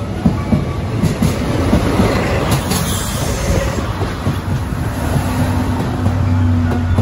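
A locomotive-hauled train of Salon Car Naniwa 14-series passenger coaches runs past close by. The locomotive goes by about two to three seconds in, then the coaches roll past with wheels clicking over the rail joints and a steady low hum.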